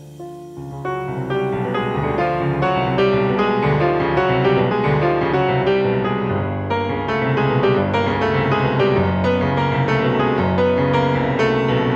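Jazz piano music: a busy, flowing run of keyboard notes that swells in loudness over the first couple of seconds, then carries on steadily.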